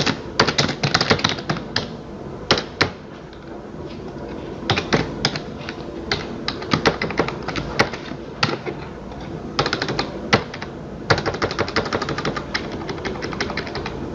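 Typing on a computer keyboard: quick runs of keystrokes broken by short pauses, with a long, even run of key presses in the last few seconds.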